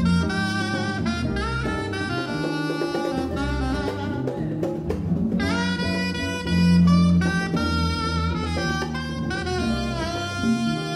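Live jazz band: a saxophone plays a flowing melody over acoustic guitar, bass and hand percussion, breaking off briefly near the middle before going on.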